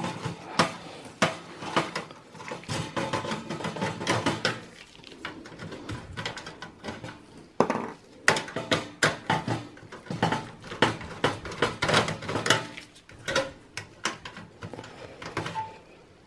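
A screwdriver unscrewing small motherboard screws from a steel computer case, making irregular metallic clicks, scraping and rattling. Loose screws clink as they are set down.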